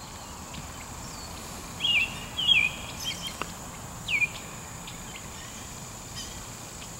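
A bird calling: a handful of short, downward-slurred chirps starting about two seconds in and ending a couple of seconds later, over a faint steady high whine and outdoor background noise.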